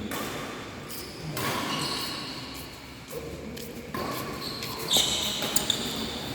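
Badminton play on an indoor court: shoes squeaking on the floor and sharp racket strikes on the shuttlecock, the loudest two about five seconds in, less than a second apart.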